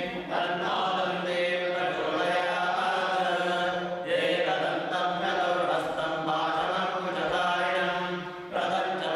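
A group of men chanting Sanskrit Vedic mantras together in a steady recitation, with a brief pause for breath about eight and a half seconds in.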